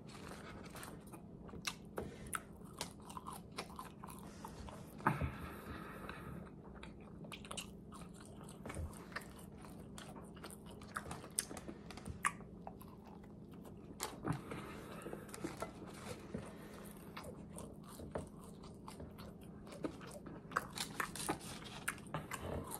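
Close-miked mouth sounds of a person chewing and biting fried chicken sandwich and french fries: irregular wet smacks and clicks of chewing, with bites in between.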